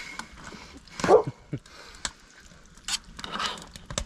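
A dog gives one short, loud cry about a second in, falling in pitch.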